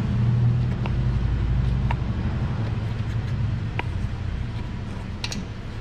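A low steady mechanical hum, louder in the first couple of seconds, with a few sharp metallic clicks from a wrench turning the nut welded onto a broken exhaust manifold stud, backing the steel stud out of the aluminum cylinder head.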